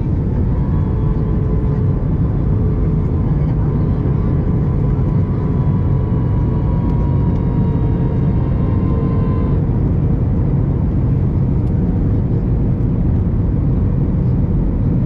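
Steady cabin noise inside an Airbus A321 in flight: a loud, even rumble of engines and airflow. Fainter whining tones, sliding slightly lower, stop abruptly about ten seconds in.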